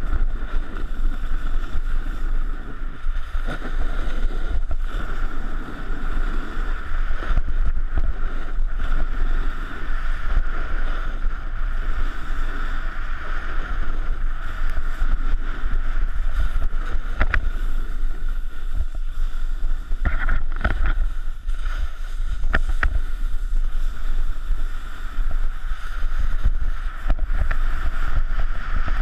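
Wind buffeting the microphone of a pole-mounted action camera, over the steady hiss of a snowboard sliding and carving across snow. A few sharp clicks come past the middle.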